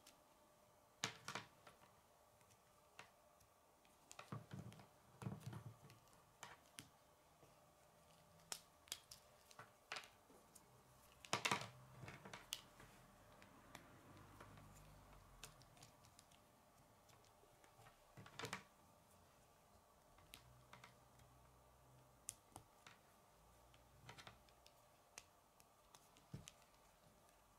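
Faint, irregular clicks and taps of plastic K'nex rods and connectors being handled and fitted together, the loudest click about halfway through.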